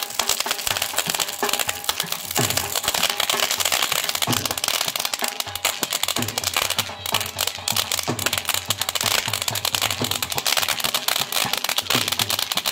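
Ground firework fountain spraying sparks, with a dense, continuous crackle of many small pops. Music plays underneath, with low falling bass notes every second or two.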